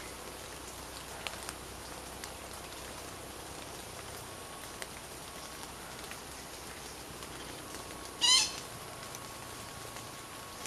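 A single short, loud bird call about eight seconds in, over a steady forest background hiss with scattered faint ticks.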